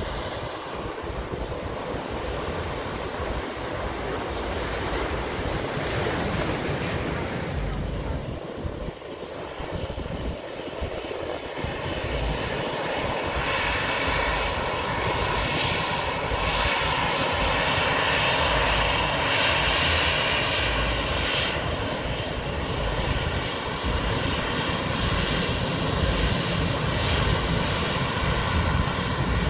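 Jet engines of an American Airlines Airbus narrowbody airliner running on the runway, a steady rumble with a whine that grows louder about halfway through.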